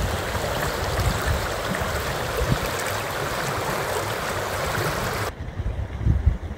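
Hill stream running with a steady rush of water. It cuts off abruptly about five seconds in, leaving a low rumble of wind on the microphone.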